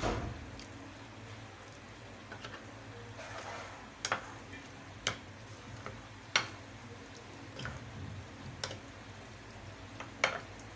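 A spoon clinking sharply against a glass bowl at irregular intervals, every second or two, as raw chicken pieces coated in a thick cornflour-and-spice marinade are stirred, with soft wet stirring between the clinks.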